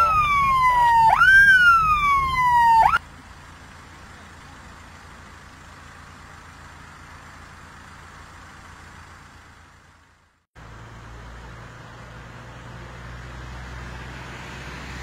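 Police car siren sounding in quick repeated sweeps, each a fast rise and a slower fall, about once a second, cutting off suddenly about three seconds in. A much quieter steady rumbling noise follows, dropping out briefly near ten seconds and then slowly growing.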